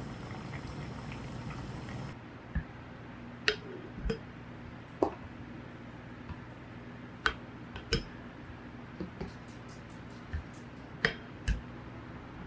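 For about two seconds, peach slices simmer in syrup in an enamel pot with a steady bubbling hiss. This cuts off suddenly, followed by a wooden spoon scooping cooked peach slices from the pot into a glass jar, giving a series of sharp knocks and clinks against the pot and the glass.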